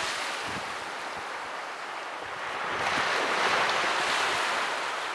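Sea surf: small waves breaking and washing up the beach, with some wind buffeting the microphone. The wash dips a little in the first half and swells louder about three seconds in.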